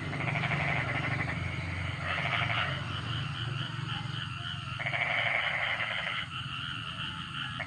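Animal calls, frog-like, in rapid pulsing bursts of one to two seconds each, repeating several times over a low steady hum.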